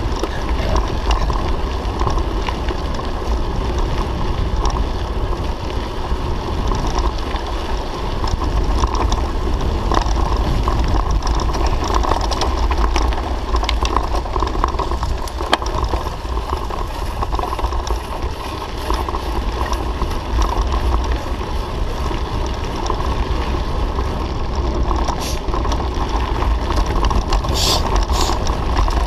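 Mountain bike rolling over a gravel dirt track, heard from a handlebar-mounted camera: wind rumbling on the microphone over tyre noise, with scattered clicks and rattles from the bike.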